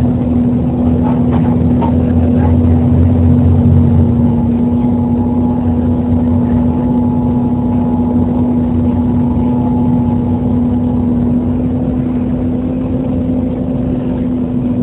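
Volvo B7TL double-decker bus heard on board: the engine-driven cooling fan gives a loud, steady hoover-like whine over the engine. The engine's low drone is heavier for the first four seconds, then eases off while the fan whine holds.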